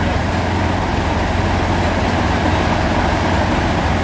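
A train's steady low rumble, with running noise above it and no distinct knocks or whistles.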